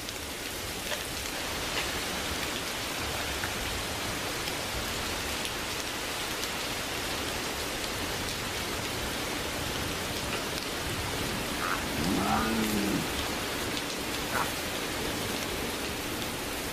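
Steady rain falling. About twelve seconds in there is a short animal call that rises and falls.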